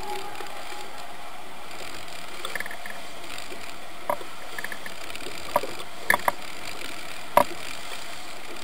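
Steady rush of wind and water from a small outboard-powered fishing boat running through choppy sea, with a few short sharp knocks in the second half.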